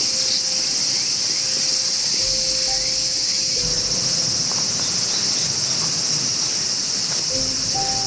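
A dense chorus of summer insects, a steady, shrill, high-pitched drone.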